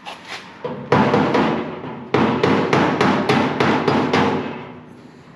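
Hammer blows on car-body sheet metal, knocking an edge down flat: a few single strikes, then a quick run of about ten blows at roughly four a second that stops about a second before the end.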